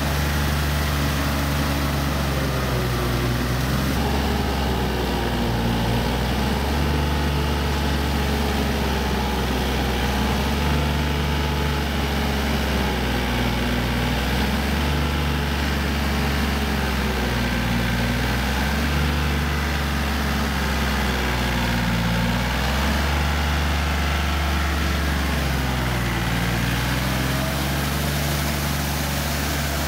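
Yanmar EF393T four-wheel tractor's diesel engine running steadily under load while it pulls a rotary tiller through wet paddy mud. The engine note rises and falls slightly as the load changes.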